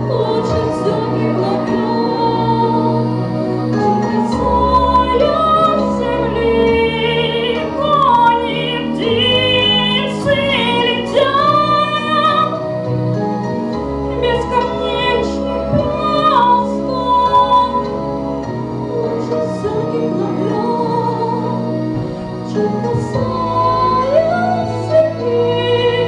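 A woman singing a song into a microphone over instrumental accompaniment, holding long wavering notes several times.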